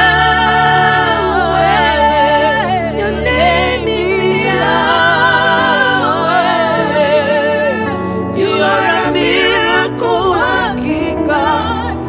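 Gospel worship singing: a solo voice sings a wavering, ornamented melody with vibrato over steady held chords, the chord changing about four seconds in and again near the end.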